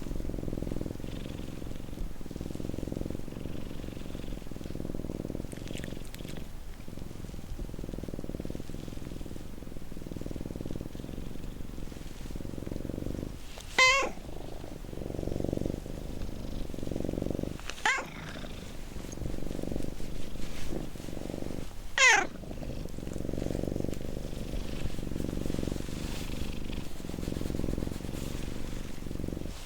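Domestic cat purring steadily, the purr swelling and fading with each breath. Three short, loud meows break in during the second half.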